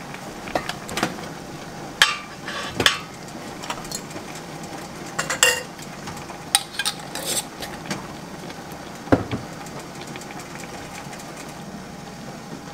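Metal ladle clinking and knocking against a metal canning funnel, glass jars and an enamel pot as hot pickles and brine are ladled into jars, with scattered sharp clinks over a steady low background.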